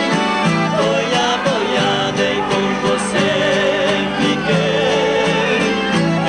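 Live Brazilian country (caipira) music: two acoustic guitars strumming and plucking with a piano accordion holding sustained chords, and voices singing a duet melody over them.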